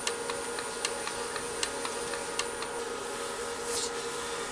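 Robust wood lathe running with a steady hum while a paintbrush lays finish onto the spinning board. A regular light tick sounds a little more than once a second and stops about two-thirds of the way through, and a short brushing hiss follows near the end.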